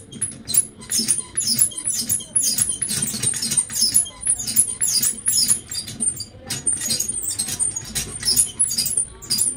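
Hand-made foley effect for a hospital stretcher and wheelchair being wheeled along: rapid, irregular clicking and rattling of small hard objects worked by hand, stopping near the end.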